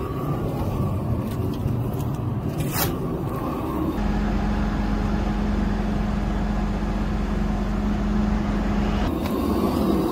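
Engine of construction machinery running steadily. Its sound changes abruptly about four seconds in, to a steady low hum, and again about nine seconds in. A single sharp knock comes about three seconds in.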